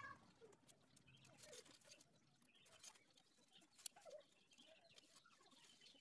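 Near silence: room tone with faint scattered small clicks and squeaks, and one sharper click just before four seconds in.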